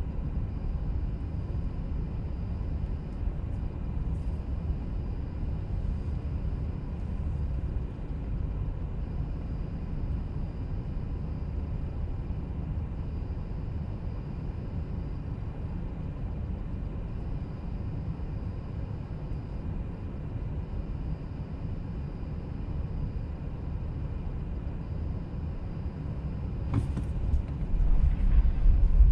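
A car driving along a motorway: steady low road and engine rumble, swelling louder over the last couple of seconds.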